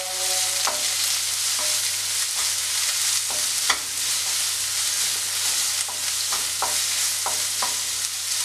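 Chopped shallots and chillies sizzling in ghee in a nonstick pan, being sautéed until browned, while a spatula stirs them, with irregular short scrapes and taps of the spatula against the pan.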